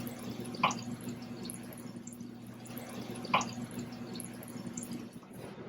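A steady low hum with two short clicks, one just over half a second in and one about three and a half seconds in.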